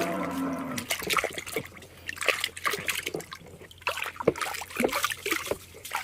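Water splashing and trickling, with many irregular small clacks and splashes as toy vehicles are handled in water. A brief pitched sound opens it.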